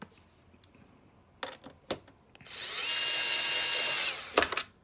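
Electric screwdriver running for about a second and a half, driving a screw into the console, with a steady motor whine that drops as it stops. Short clicks of parts being handled come before and after it.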